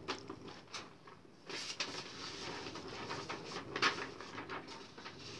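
Sheets of paper being handled and turned over, rustling with a few sharp crackles; the loudest crackle comes a little before four seconds in.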